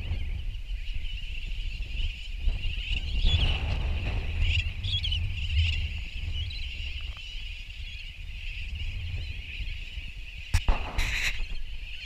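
Nesting seabirds calling in a colony: a steady chorus of calls, louder for a few seconds early on, with wind rumbling on the microphone. A sharp click and a short burst of noise come near the end.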